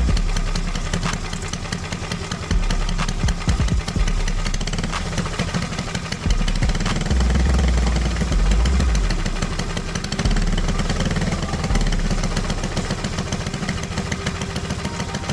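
Briggs & Stratton LO206 single-cylinder four-stroke kart engine running on a dyno, revved up and let back down several times under load as it is warmed up.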